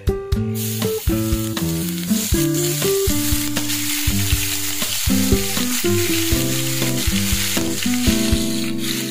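Minced garlic sizzling as it hits hot oil in a frying pan, starting about half a second in, and frying while a silicone spatula stirs it. Plucked-guitar background music plays underneath.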